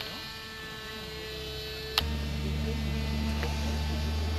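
Steady high whine of a model airplane engine running, with a sharp click about two seconds in at an edit, after which a deeper, louder steady hum comes in under the whine.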